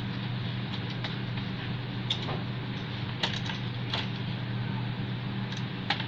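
Steady low hum and hiss with a few sharp clicks and taps, like small hard parts being handled, about two, three, four and six seconds in.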